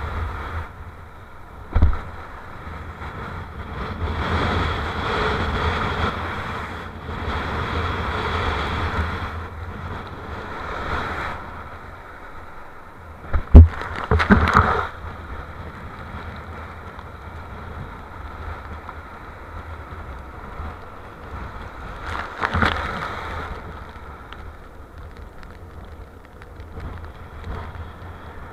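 Strong wind buffeting an action camera's microphone over the rush of surf and water spray from a kiteboard riding through white water; the rush swells and fades. Sharp knocks now and then, with a loud pair about halfway through.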